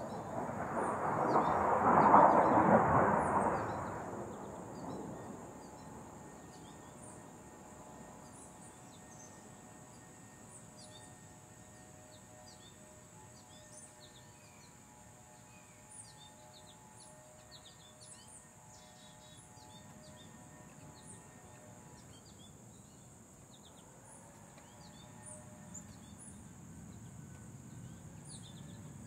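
USAF Thunderbirds F-16 jet passing by: a loud roaring rush that peaks about two seconds in and dies away over the next few seconds. Small birds then chirp over a steady high-pitched insect drone, with a faint distant motor hum whose pitch rises near the end, typical of a neighbourhood leaf blower.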